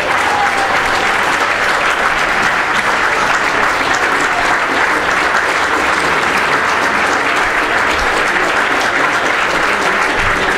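Crowd applauding: many people clapping steadily and continuously.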